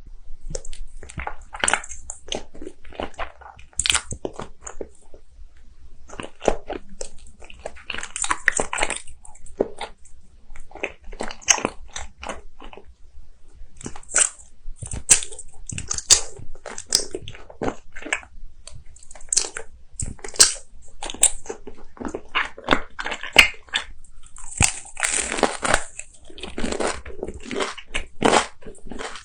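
Close-miked crunchy eating: repeated sharp bites and chewing crunches at an uneven pace, with denser bursts of crunching now and then.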